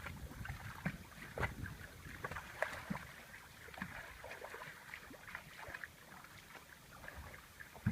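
Light water sloshing and small splashes, with scattered short knocks and a sharper one near the end.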